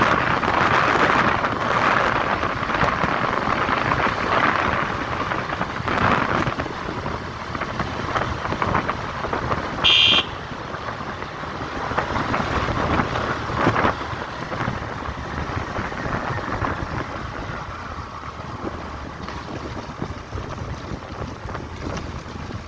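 Wind rushing over the microphone and road noise from a moving vehicle, slowly easing off, with a short high beep about halfway through.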